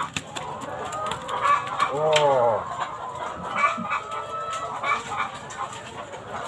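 Chickens in a coop clucking repeatedly, in short calls, with one longer rising-and-falling call about two seconds in.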